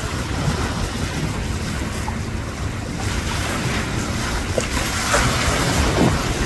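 Wind buffeting the microphone over choppy waves, swelling a little louder about five seconds in.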